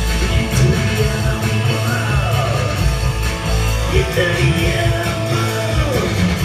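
Live rock band music: electric guitar and bass guitar playing over a heavy, pulsing low-end beat, with a voice singing gliding lines.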